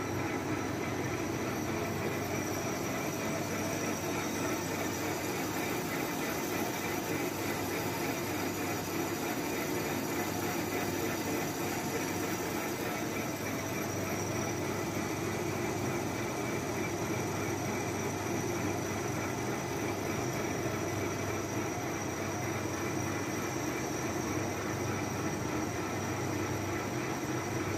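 Manual engine lathe running steadily while a boring bar cuts the inside of a large ring-shaped workpiece: an even, unbroken noise of the machine's drive and the cut, with no pauses or changes.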